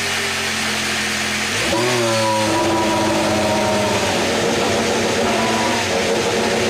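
Formula 1 car's 1.6-litre V6 turbo-hybrid engine running steadily, then revving up quickly about two seconds in and holding at the higher speed.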